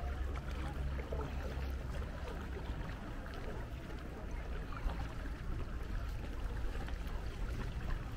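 Water sloshing and trickling around a sea canoe as it glides and is paddled, over a steady low rumble.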